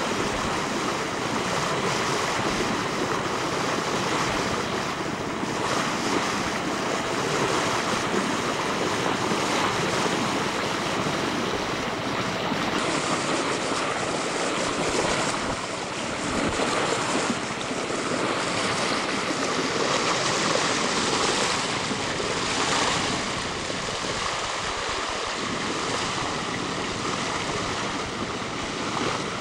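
Water rushing and splashing along a sailing yacht's hull as it moves through the sea, with wind buffeting the microphone.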